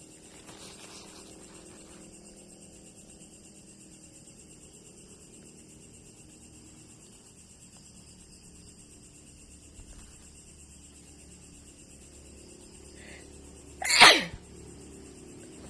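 A single short, sharp sneeze near the end, over a quiet, steady background.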